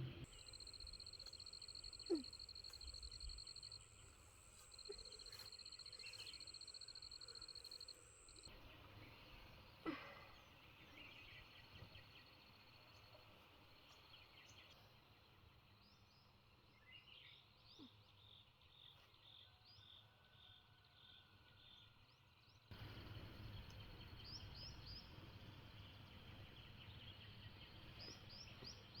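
Faint outdoor rural ambience: scattered bird chirps over a high, steady whine, with a few soft knocks. The background changes abruptly twice.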